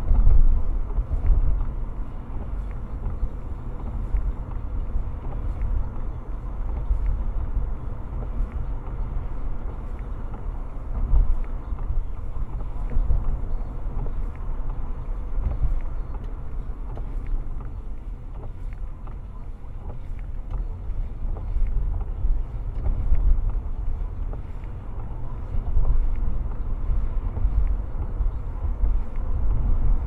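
Steady low rumble of a car's road and tyre noise on wet pavement, heard from inside the cabin while driving.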